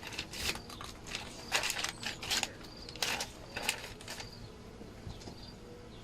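Wooden beehive parts being handled and taken off: a string of short scrapes and knocks.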